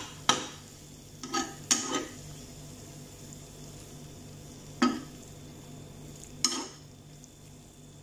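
Spoon stirring and scraping through a shredded chicken and vegetable filling in a small non-stick frying pan, with about five sharp scrapes and knocks against the pan at irregular intervals. A steady low hum runs underneath.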